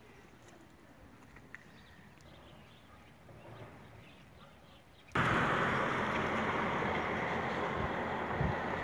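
Faint outdoor background, then, about five seconds in, an abrupt switch to a loud, steady rushing noise with a few low thumps near the end.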